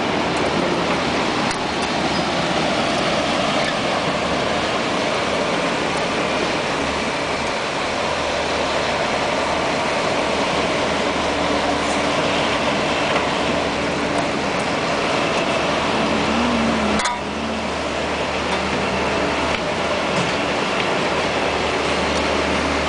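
Bitelli asphalt milling machine (grinder) running at full speed cutting pavement: a loud, steady heavy-machinery din. The noise briefly dips with a sharp click about three-quarters of the way through.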